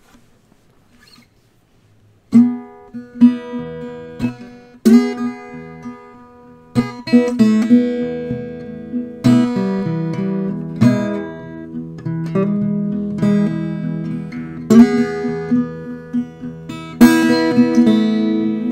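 Acoustic guitar playing a blues piece, coming in about two seconds in with picked notes and chords that ring out and decay.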